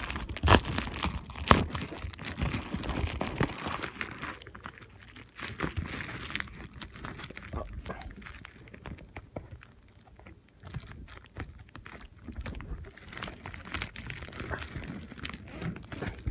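Irregular rustling, clicks and knocks of things being handled close to the microphone, denser and louder for the first few seconds, then sparser.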